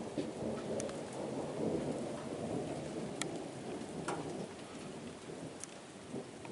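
Thunderstorm: steady rain with a low rumble of thunder that swells in the first couple of seconds and then eases. A few sharp ticks stand out over the rain.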